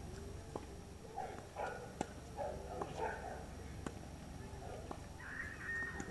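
Tennis ball pops, sharp single knocks of a ball struck by rackets and bouncing on a hard court, about half a dozen at uneven intervals, over faint, indistinct voices.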